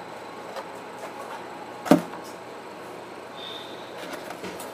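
Quiet room background with one sharp knock about two seconds in and a few fainter clicks, from household objects being handled.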